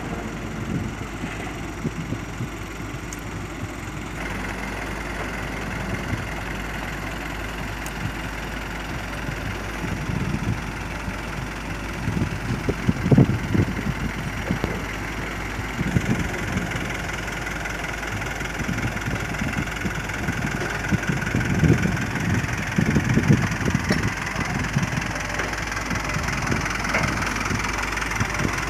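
Heavy diesel engine idling steadily, with irregular louder low thumps and knocks through the middle stretch.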